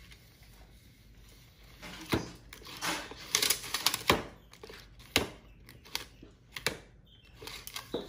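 Steel tape measure handled by a monkey: the blade and its case clack and rattle in a series of sharp irregular clicks and knocks, busiest and loudest about three to four seconds in.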